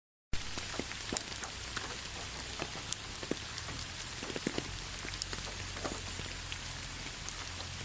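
Steady rain falling, with a constant hiss and many separate drops ticking and splashing on a surface. It starts abruptly a moment in.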